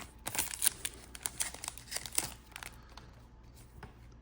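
Foil wrapper of a Disney Lorcana booster pack crinkling and tearing as the pack is opened, a quick run of crackles that dies down to a few faint rustles about two and a half seconds in.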